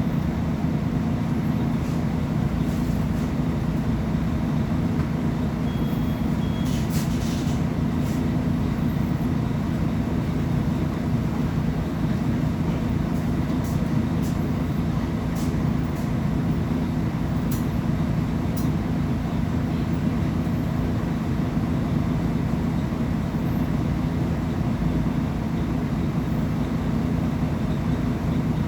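Diesel engine of a Mercedes-Benz O500UA BlueTec 6 articulated bus running at a steady speed: a low, even drone with no revving. A few faint clicks about seven seconds in.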